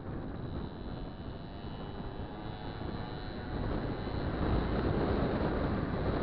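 Wind buffeting the microphone of a moving vehicle, over road rumble and a faint high engine whine. It grows louder about four seconds in.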